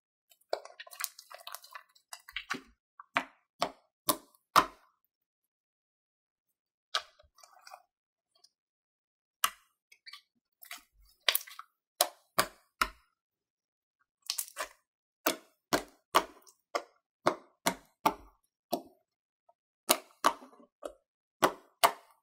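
Fingertips poking and pressing into thick, glossy slime, giving a string of sharp wet clicks and pops as air pockets burst, in irregular runs with short pauses.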